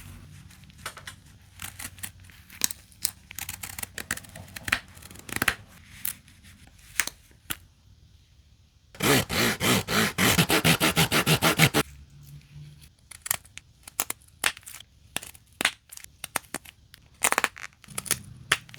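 Victorinox Outrider Swiss Army knife blade whittling hard, seasoned wood: scattered short cuts, scrapes and cracks of wood fibres. About nine seconds in comes a loud run of rapid, evenly repeated strokes lasting nearly three seconds.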